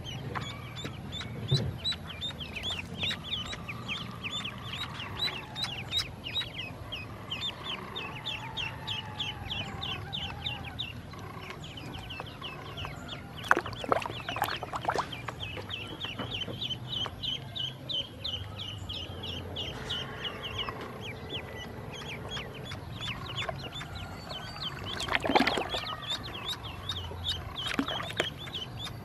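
Ducklings peeping continuously, a rapid run of short, high, falling peeps, with a few brief louder noises around the middle and near the end.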